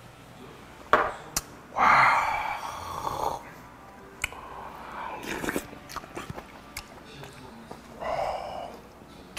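A man knocks back a shot of soju, sets the glass down with a sharp clack about a second in, then lets out a loud breathy gasp. A metal spoon then clinks against the bowl, followed by chewing and slurping as he eats the gukbap.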